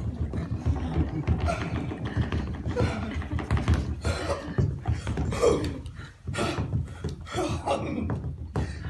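Wordless vocal sounds from a performer on stage, cries and groans rather than speech, over a steady low rumble.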